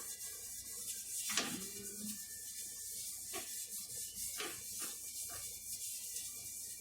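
Steady hiss of a hot, lightly oiled frying pan on a stove. Over it come a few short scraping strokes and light knocks of a cooking utensil, the first one about a second and a half in and the loudest.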